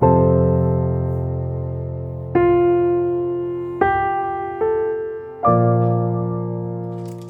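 Slow, gentle piano music: a chord or note struck every second or two, each left to ring and fade before the next.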